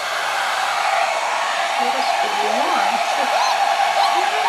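Handheld hair dryer blowing steadily, with a constant whine from its motor. From about two seconds in, short high rising-and-falling whines sound over it.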